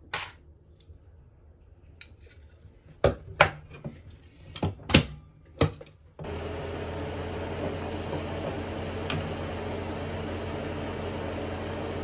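Tools and small metal parts being handled on a workbench: a handful of sharp clinks and knocks over the first six seconds. Then, about six seconds in, a steady fan-like whir with a low hum starts suddenly and holds.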